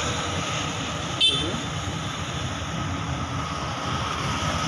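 Street traffic noise from scooters and motorcycles on the road, a steady rumble, with one short sharp sound about a second in.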